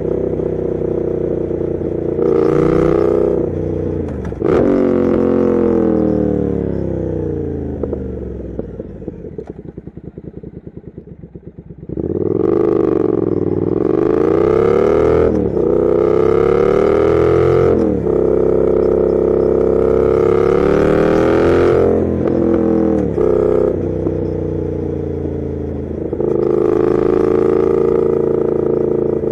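Triumph Thruxton RS 1200 cc parallel-twin engine through a Weslake exhaust, heard while riding. It winds down on a closed throttle to a quieter overrun, then accelerates hard about twelve seconds in, rising in pitch through two upshifts. It eases off with a couple of quick throttle blips on downshifts, then pulls away again near the end.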